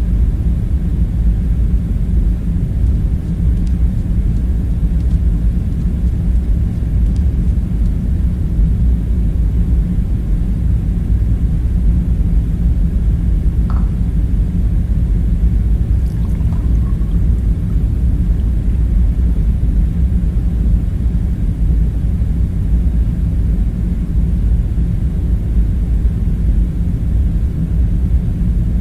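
A steady, deep rumbling drone of machinery-like room hum that does not change, with two faint clinks about halfway through.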